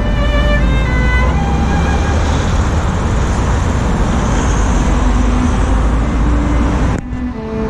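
Road traffic going by on a busy road, a loud, steady rumble of passing cars and vans, with cello music faintly underneath. About seven seconds in the traffic noise cuts off suddenly and the cello carries on.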